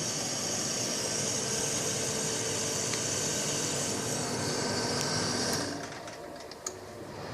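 White-Westinghouse dehumidifier running: a steady fan hiss over a low hum. About five and a half seconds in the hiss drops away and the sound gets quieter, with a single click near the end.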